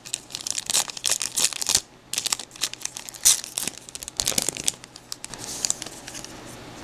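Plastic trading-card pack wrapper being torn open and crinkled by hand, in quick crackling bursts that thin out after about four and a half seconds.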